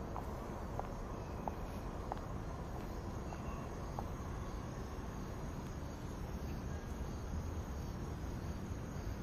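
Steady outdoor background ambience, an even low hiss with faint chirps, like insects, and a few soft clicks in the first few seconds.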